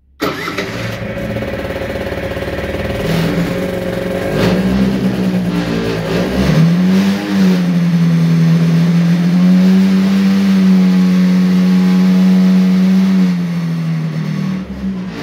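Piaggio Quartz scooter's 50 cc two-stroke engine starting at once from cold after standing for several days, then running at a fast idle. Its pitch climbs over the first few seconds and dips and rises about seven seconds in. It holds steady, then drops and quietens near the end.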